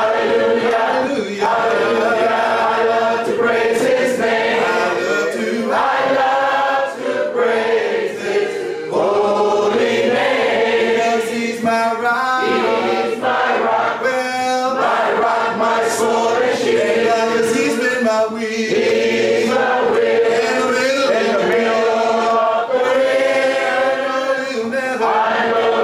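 Church congregation singing a hymn together a cappella, many voices without instruments: the invitation song at the close of the sermon.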